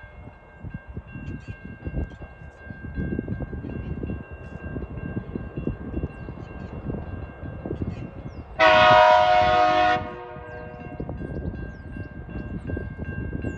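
A TasRail diesel locomotive's horn sounds one blast of about a second and a half, about two-thirds of the way in, the loudest thing here. Before and after it, a low rumble and a faint steady high tone.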